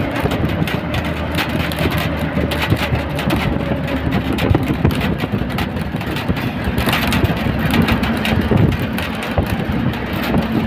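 State transport bus travelling at road speed, heard from inside the cabin with a side window open: steady engine and road noise, rushing air, and frequent small rattles and knocks from the bus body.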